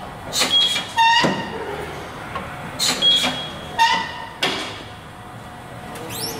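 Tire-shop work noises around a wheel balancer: about six sharp metallic clanks and knocks, some ringing briefly, with a quick rising squeak near the end.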